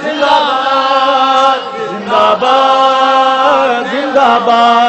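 A man chanting a rally slogan-chant in long, drawn-out held notes, in three phrases with brief breaks about two seconds in and near four seconds.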